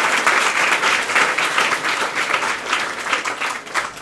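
Audience applauding, dense clapping that gradually fades and dies away near the end.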